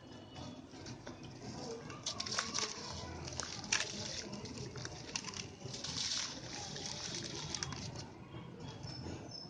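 Lumps of white sand-concrete crumbling and crunching as they are broken into powder, a gritty crackle full of irregular sharp snaps.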